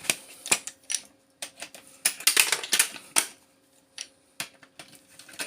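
Rapid, irregular clicks and clatter of small hard parts being handled while power adapters are taken apart for their copper, with the busiest run of clicks in the middle. A faint steady hum sits underneath.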